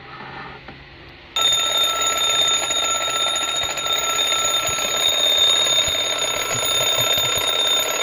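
Twin-bell alarm clock ringing, its hammer rattling rapidly against the two bells. The ringing starts suddenly about a second and a half in and stays loud and steady.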